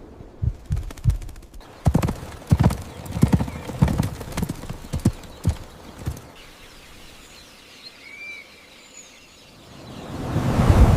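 Horse hooves clip-clopping in an uneven run of knocks for about six seconds, then dying away. A few faint chirps follow, and a whooshing swell builds up near the end.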